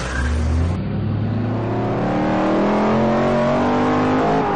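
Race car engine accelerating hard from a standing start, its pitch climbing steadily for several seconds, then dropping briefly and rising again near the end like a gear change.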